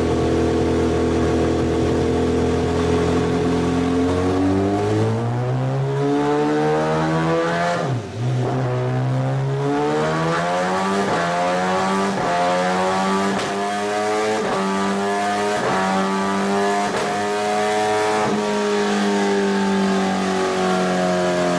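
First-generation MV Agusta F4 750's inline-four engine, revved while the bike stands on a rear stand. It holds a steady note at first, climbs in pitch after about four seconds, drops sharply for a moment near eight seconds, then climbs again to a higher held rev that wavers slightly.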